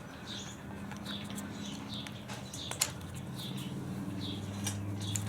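Short high chirps repeating about twice a second, like a small bird calling, over a steady low hum, with a few sharp clicks.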